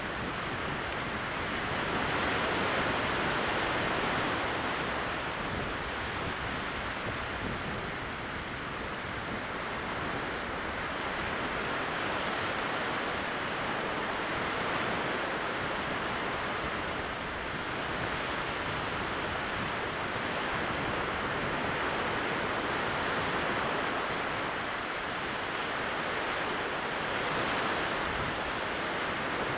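Small waves breaking on a calm sea at very low tide: a steady hiss of surf that slowly swells and eases every few seconds.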